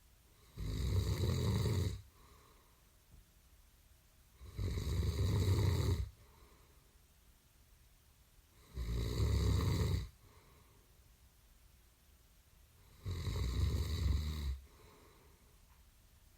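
Loud snoring: four long snores, each about a second and a half, coming roughly every four seconds, with a faint breath out shortly after each one and quiet in between.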